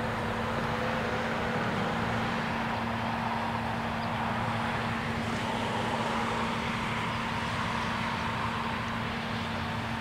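Level-crossing warning bell ringing continuously while the crossing is closed, over a steady rushing vehicle noise with a faint pitched whine that drifts slowly.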